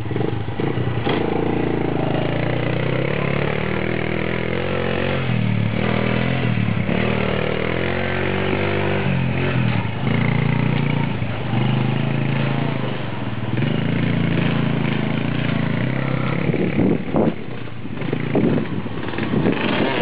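Small ATV engine running under way, its pitch rising and falling again and again as the throttle is worked.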